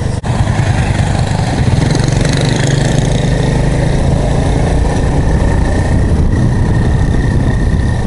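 Honda Super Cub's air-cooled single-cylinder four-stroke engine running steadily while riding, with road noise.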